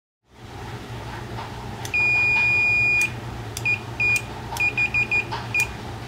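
Multimeter continuity beeper sounding as the test probes touch the terminals of a microwave door micro switch. There is one steady beep of about a second, then seven short beeps at the same pitch. The beep signals that current passes through the switch.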